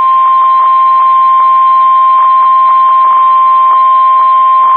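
NOAA Weather Radio warning alarm tone: a single steady high beep near 1 kHz (the 1050 Hz warning tone), held without a break, with faint crackle under it. It signals that a warning, here a severe thunderstorm warning, is about to be read.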